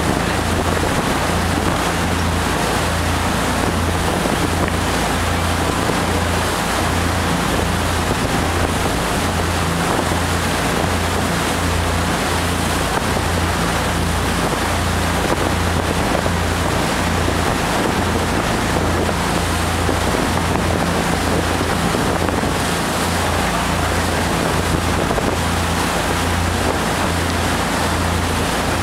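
Cruise boat underway: its engine gives a low, pulsing drone beneath a steady rush of water and wind noise on the microphone.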